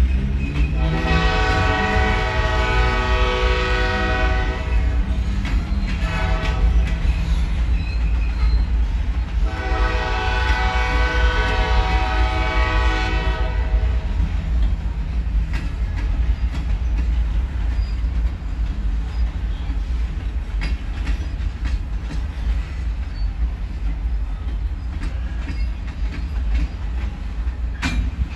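Freight train of covered hopper and open-top cars rolling past with a steady heavy rumble. The locomotive's horn sounds from up the line: a long blast about a second in, a short one around six seconds, and another long blast near ten seconds, the closing part of a grade-crossing signal. Near the end, wheels click over rail joints.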